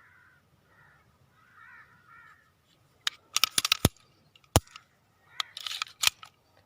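Crows cawing a few times. Then, from about three seconds in, a quick run of sharp metallic clicks and clacks from handling a 30 bore pistol, with one louder clack in the middle and another cluster near the end.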